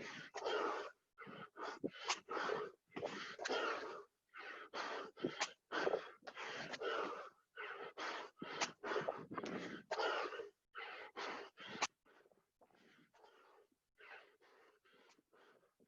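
A man panting hard from burpee exercise, with rapid, loud, gasping breaths. About twelve seconds in, the breathing drops to much quieter, softer breaths.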